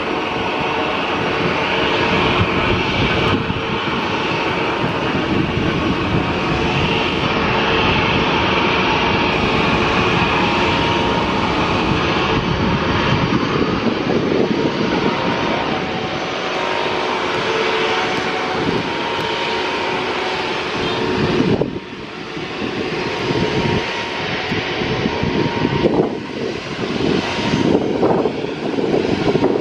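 Airbus A330neo's Rolls-Royce Trent 7000 turbofans running at taxi power as the airliner rolls slowly along the runway: a steady jet rush with a held whine. The sound dips briefly about three-quarters of the way through, then comes back unsteadily.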